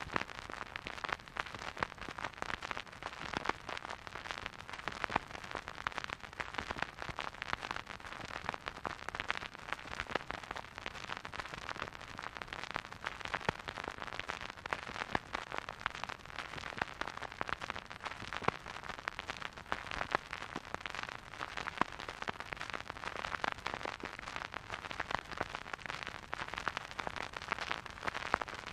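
Vinyl record surface noise from a record player spinning with no music: a steady soft hiss thick with small crackles and pops as the stylus rides the groove.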